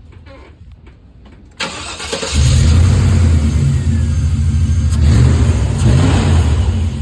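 A 1998 GMC/Chevy 5.7L V8 cranks briefly and catches about two seconds in, then runs steadily at idle. This is the first start after a new alternator and serpentine belt were fitted.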